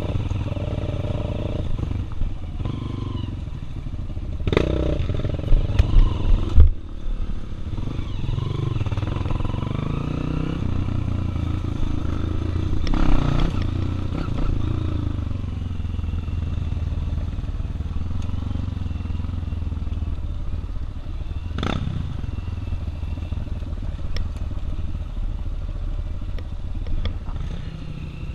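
Honda XR 240 dirt bike's single-cylinder engine running on a trail, the throttle rising and falling. A cluster of loud thumps comes about six seconds in, with a few sharp knocks later, as the bike goes over rough ground.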